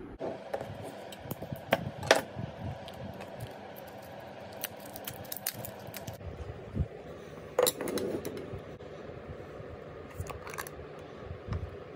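Scattered sharp clinks and clicks of hand handling: a metal spoon knocking against a ceramic bowl, then a glass jar's plastic screw cap being gripped and twisted. The loudest clink comes about two seconds in, and another about seven and a half seconds in rings briefly.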